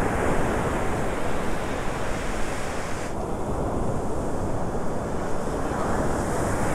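Ocean surf breaking and washing on a beach, with wind buffeting the microphone: a steady rush of noise. The higher hiss thins out about three seconds in.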